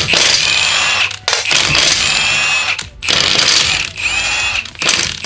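Cordless impact wrench running in repeated bursts of about a second each, with its motor whine rising in each burst, as it spins the lug bolts out of a car wheel.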